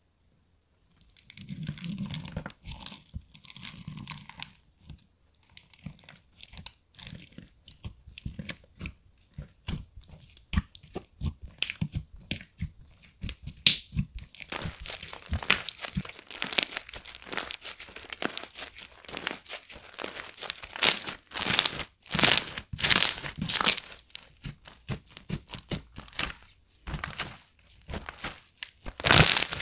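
Hands squeezing, pressing and stretching a thick slime with clay charms and small beads mixed in, giving sticky crackles, pops and crunchy clicks. These are sparse at first and come thick and louder from about halfway.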